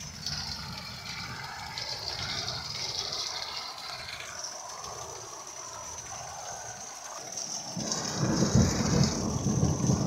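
Steady rain with a roll of thunder. The thunder builds about eight seconds in and is at its loudest near the end.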